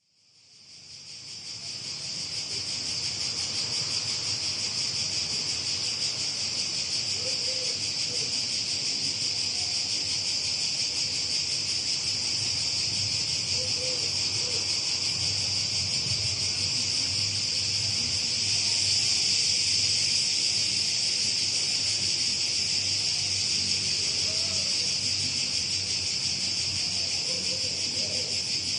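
Dense chorus of insects chirring steadily at a high pitch. It fades in over the first couple of seconds, then holds level.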